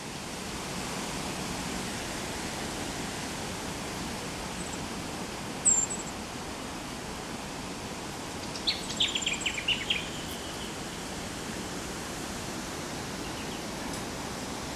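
Variegated fairy-wren calling: a few thin, very high notes, one sharp one about six seconds in, then a quick run of about eight chirping notes around nine seconds in, over a steady background hiss.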